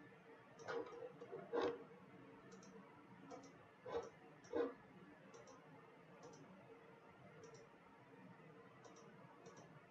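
Scattered clicks of a computer mouse and keyboard. Four sharper clicks come in the first five seconds, then fainter ticks about once a second, over a faint steady hum.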